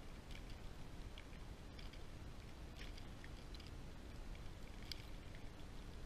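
Blizzard wind rumbling steadily on the microphone, with faint scattered ticks of snow striking the camera.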